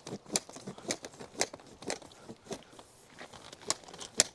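Blue plastic water pipe being shoved by hand into an underground duct: a run of sharp crunching scrapes and clicks about twice a second, each push of the pipe meeting friction in the duct.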